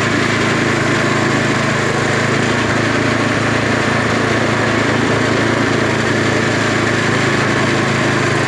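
Small single-cylinder petrol engine driving a sugarcane juice press, running at a steady speed.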